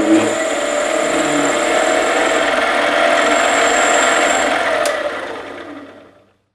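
Metal lathe running with an aluminum post spinning in its chuck as the tool cuts it to depth: a steady machine sound with a high whine, fading away from about five seconds in.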